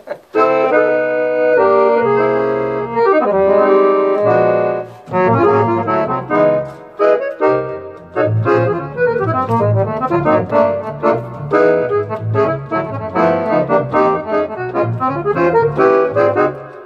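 Roland FR-4X digital accordion playing a polka: a few held chords to open, then a brisk oom-pah rhythm of alternating bass notes and chords under a busy melody, from about five seconds in.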